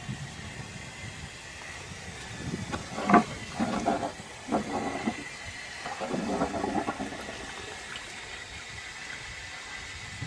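Water rushing and gurgling through a cast iron toilet cistern under test, with a run of louder irregular gurgles and splashes in the middle, the strongest about three seconds in.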